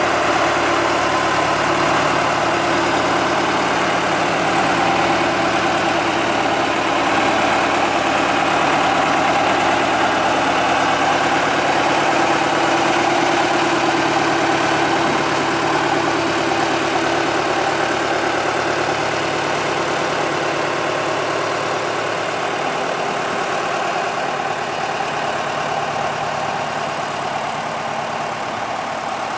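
Small narrow-gauge diesel locomotive's engine running steadily at idle, growing gradually fainter over the last third as the locomotive moves away.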